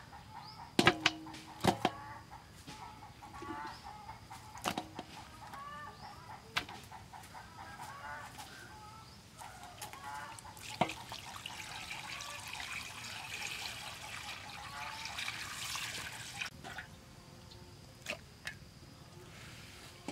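Chickens clucking in the background, with a few sharp knocks of raw pork and the aluminium pot in the first five seconds and another near eleven seconds. A steady rushing noise follows for about five seconds.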